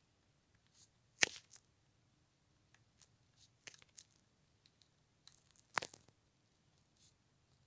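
Budgerigar pecking at and biting a mealworm on a hard floor: faint, scattered beak clicks and taps, with two sharper clicks, one about a second in and one a little before the end.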